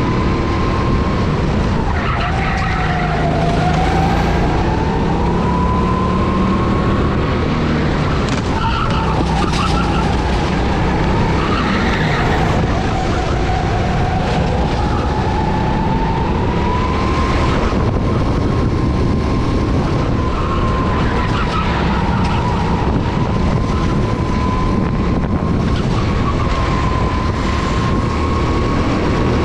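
Go-kart engine heard from the driver's seat, its high buzzing note dropping as the kart slows for corners and climbing again on the straights, twice in a long slow sweep. A steady rush of noise runs underneath.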